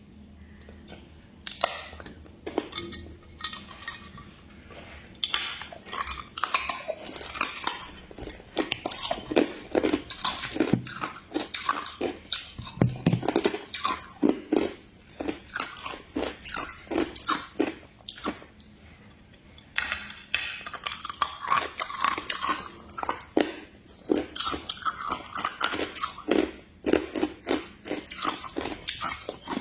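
Hard ice being bitten and chewed: a long run of loud, irregular crunches with brief pauses between bites.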